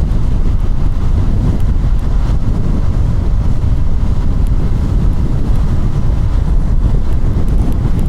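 Wind rushing over the microphone on a moving KTM Duke 200 motorcycle, over the steady running of its single-cylinder engine at cruising speed.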